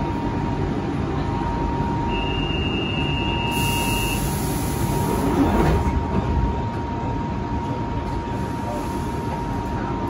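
Central line 1992 Stock tube train running in the tunnel, heard from inside the carriage: a steady rumble of wheels on rail with a constant whine, swelling into louder hiss and clatter about halfway through.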